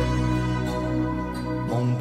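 Instrumental introduction of a slow Cantonese pop song: sustained chords over a deep bass, shifting to a new chord near the end.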